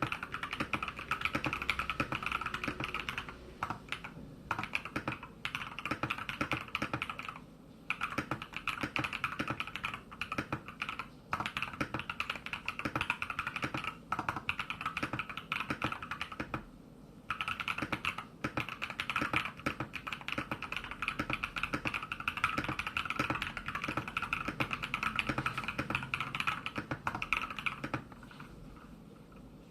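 Continuous fast typing on an SK68 mechanical keyboard modded with a brass plate, Poron and PE foam, a tape mod, and lubed, filmed switches. A dense run of key clacks is broken by a few short pauses, and the typing stops near the end.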